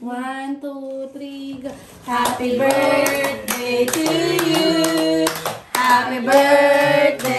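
A small group singing a birthday song together, with hand clapping along in a steady beat from about two seconds in.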